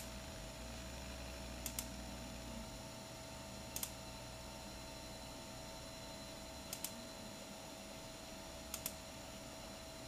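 Computer mouse clicking while working in CAD software: short sharp clicks, mostly in quick pairs, a few seconds apart, over a steady hum.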